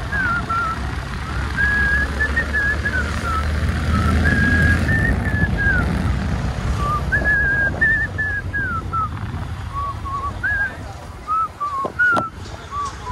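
A man whistling a tune in short wandering phrases, over the low rumble of a motorcycle ride.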